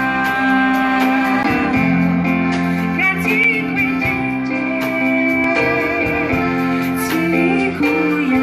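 Live band performing a Malagasy worship song: a woman singing over acoustic guitar, accordion, keyboard and drums.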